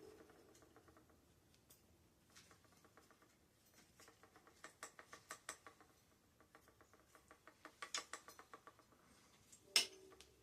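Faint runs of quick, evenly spaced ratcheting clicks, about eight a second, in two spells, then one sharper click near the end.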